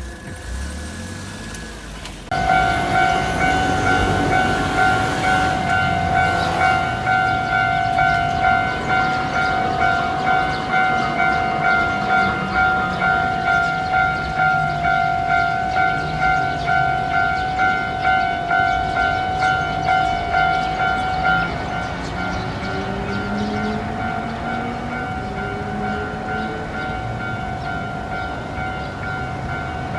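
Japanese level-crossing warning bell ringing, a two-tone electronic ding about twice a second, cutting in suddenly about two seconds in. Past two-thirds of the way it sounds quieter, and a whine rising in pitch from a passing electric train's motors comes up under it.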